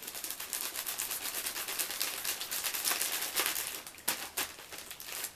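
Packaging crinkling and rustling in a rapid, continuous crackle as it is handled and opened by hand.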